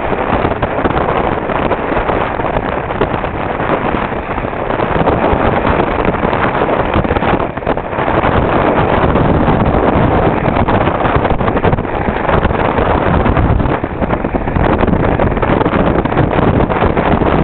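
Loud, steady rush of wind on the microphone and water washing past a sailboat's hull.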